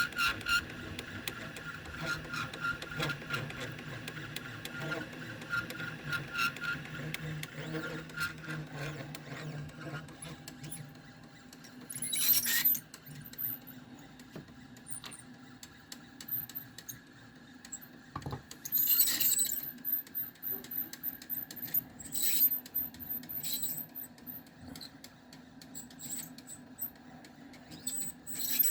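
Stepper motors of a 3018 CNC laser engraver whining and pulsing as they drive the laser head through an engraving pass. About twelve seconds in and several times after, short, louder hissy bursts break in over the quieter running.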